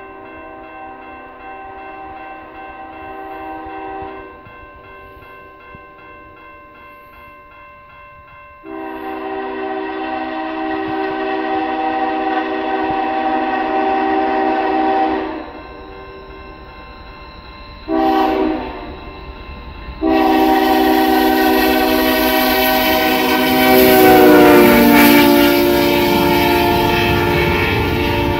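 Canadian Pacific freight locomotive's horn sounding the grade-crossing signal: the end of a first long blast, then a long, a short and a final long blast. The last blast drops in pitch as the locomotive passes close by, and the loud rumble of the passing train follows near the end.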